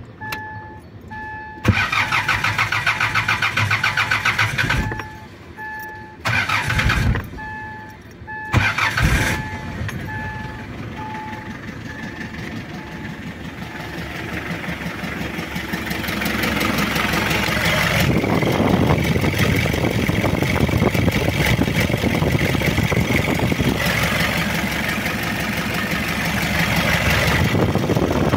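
Hyundai diesel engine being cranked by its starter motor in three tries, the first the longest, catching on the third about nine seconds in and then idling steadily, louder from about sixteen seconds on. A repeating dashboard warning chime beeps during the first ten seconds.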